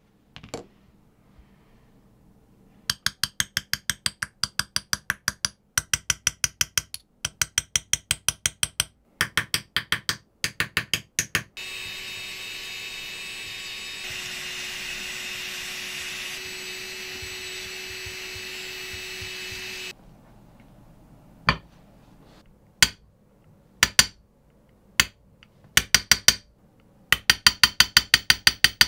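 Fast light hammer taps on a steel engraving chisel cutting into a knife blade, in runs of about six taps a second. In the middle comes a steady whir with a constant hum from a corded engraving handpiece, lasting about eight seconds, then scattered single taps and another quick run near the end.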